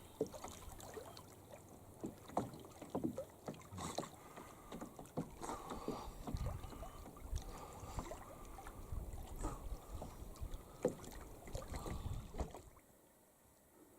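Canoe being paddled: irregular paddle splashes and water sloshing, with light knocks. It drops away suddenly near the end.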